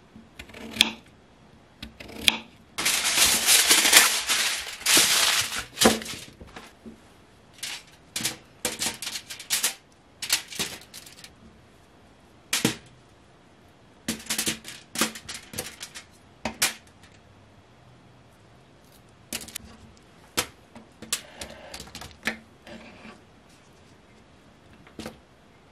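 Kitchen knife slicing raw potato on a wooden cutting board: sharp knocks of the blade against the board in irregular runs with pauses between them. A few seconds in comes a longer stretch of rustling.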